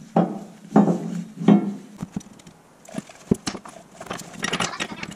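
A steel air-spring mounting bracket knocking and scraping against the truck's frame rail as it is worked into place by hand. Several dull bumps come first, then a few sharp knocks, then a run of scraping clatter near the end.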